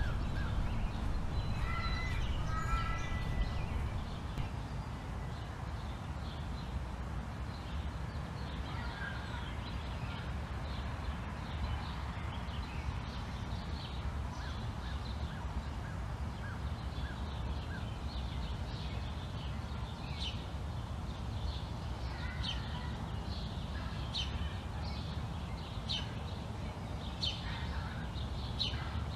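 Outdoor ambience: birds chirping and calling on and off over a steady low rumble, with a longer pitched call about two seconds in and the chirps coming more often near the end.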